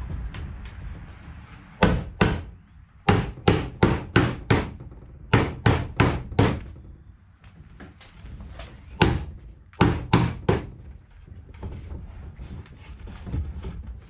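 Rubber mallet striking a wooden beehive deep-super box, knocking its joints together to make them fit. About sixteen sharp knocks come in quick groups of up to five, with short pauses between groups.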